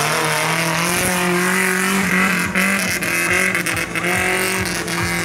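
Off-road buggy engine running hard at high revs, its pitch holding fairly steady with small rises and dips, then dropping away near the end.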